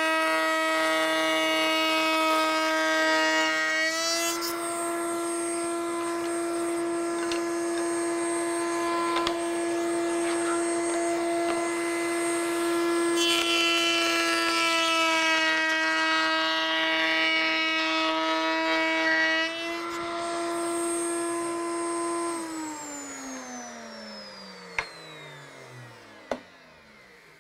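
Table-mounted router running with a steady high whine as boards are fed past the bit to cut tongues; in two passes, one at the start and one midway, the pitch sags slightly under load and a rough cutting noise joins it. A little after twenty seconds the router is switched off and its whine falls steadily in pitch as the bit spins down, with two sharp clicks near the end.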